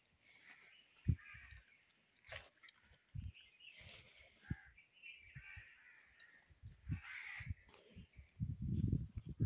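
Water buffaloes feeding on chopped green fodder at a trough: scattered short low thuds and munching, with birds calling again and again over it. A longer low rush near the end is the loudest sound.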